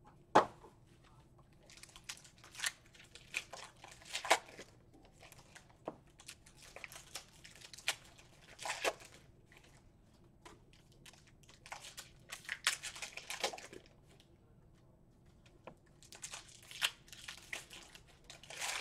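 Trading-card packs and cards being handled on a table: wrappers crinkling and rustling in short irregular bursts, with a quieter pause about three-quarters of the way through.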